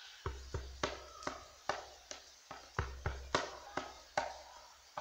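A drum being struck in an uneven rhythm, about two to three strokes a second, mixing deep booming bass strokes with sharper, higher strokes. It starts about a quarter second in.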